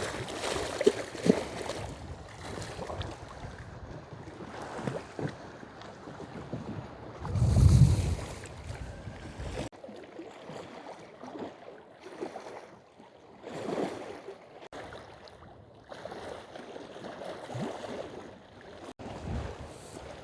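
Strong wind buffeting the microphone over waves washing against the lake shore. A heavy gust rumbles across the mic about eight seconds in.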